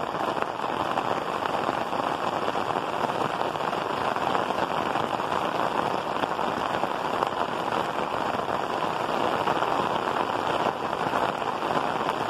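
Heavy rain falling steadily on clay roof tiles.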